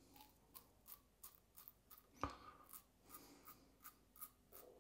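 King C. Gillette double-edge safety razor with a Feather blade scraping through lathered stubble in short, faint strokes, about three or four a second, with one louder click a little over two seconds in. The blade is tugging rather than gliding.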